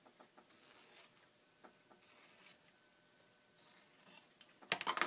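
Unbleached muslin being cut into a test strip: faint rustles and small clicks of cloth, then a short, louder rasp of fabric near the end.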